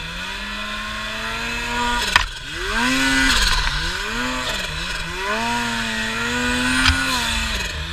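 Snowmobile engine revving up and easing off again and again as the sled is ridden through deep powder, its pitch rising and falling every second or so. Two sharp knocks cut through, the louder about two seconds in and another near the end.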